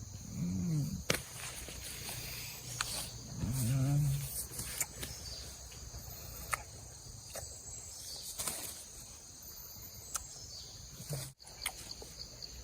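Rainforest background of a steady high insect drone, with a man giving two short hums of "mm": one right at the start and one about three and a half seconds in. Scattered light clicks and knocks come through the rest of it.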